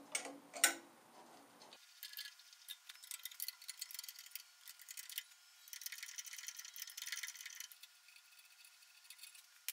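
Faint handling noises on a milling-machine setup: light metallic clicks and ticks as gloved hands touch a clamped cast-iron exhaust manifold and its hold-down clamps. The sharpest click comes just after the start, and there is a stretch of soft rustling in the middle.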